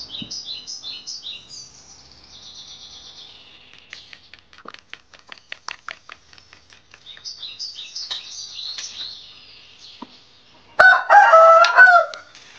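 A rooster crows loudly near the end, one call of about a second and a half, over small birds chirping. Midway comes a quick run of light clicks from a fork beating egg in a bowl.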